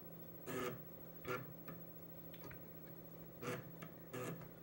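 Escort 3.5-inch external floppy drive on an Amiga A1000 reading the Workbench disk as a program loads: a few short, irregularly spaced head-seek clicks over a faint steady hum.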